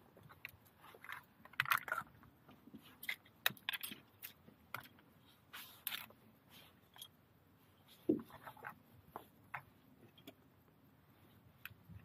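Ormer (abalone) shells clicking and scraping against each other and the rock as they are handled and set down, a scatter of light, irregular clicks and scrapes.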